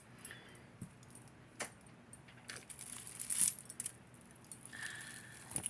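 Metal costume jewelry clinking and jingling as pieces are handled and set down, in a scatter of separate light clicks, with a brief high ring about five seconds in.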